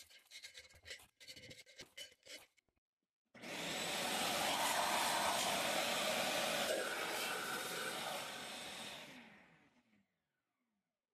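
Scraping strokes over the cast-iron mating surface of the pump's lid, clearing off old gasket material. About three seconds in, a loud, steady rush of air starts suddenly, holds for about six seconds, then dies away over about a second.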